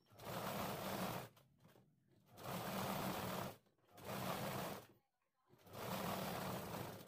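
Sewing machine stitching the lining seam onto a blouse sleeve. It runs in four short spurts of about a second each, with brief stops between.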